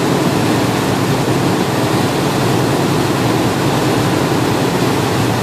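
Motorboat running at speed: a steady loud rush of engine noise and churning wake water.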